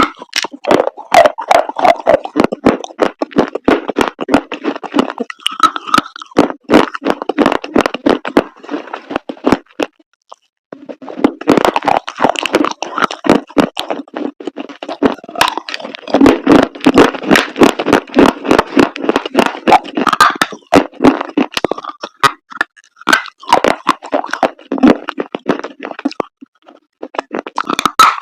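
Dried chalk paste being crunched and crumbled, a dense run of sharp cracks and crackling. It breaks off briefly about ten seconds in and again near the end.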